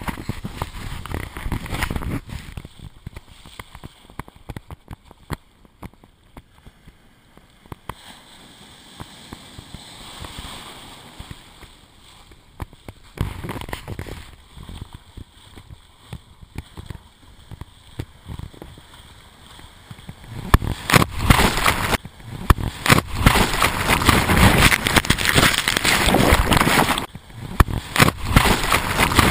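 Surf washing over a camera held low in the breaking waves, water sloshing and gurgling around it. From about twenty seconds in it turns much louder: a dense crackling, rushing churn of turbulent water around the camera.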